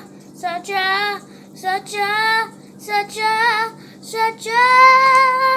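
A child singing a short wordless melody in several brief phrases, ending on a long held note. A steady low hum runs underneath.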